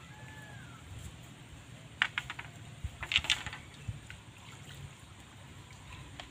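Shallow lake water splashing at the shore in two short crackling bursts, about two and three seconds in, the second louder.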